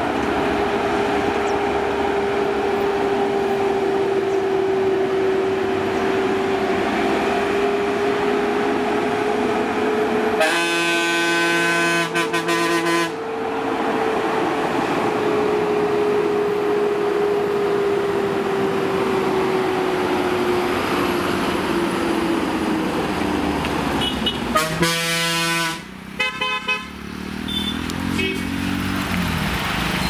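Concrete mixer truck's diesel engine running with a steady drone that slowly rises and then falls away after about twenty seconds. A vehicle horn blows a long blast of about two and a half seconds about ten seconds in, and a shorter blast about twenty-five seconds in.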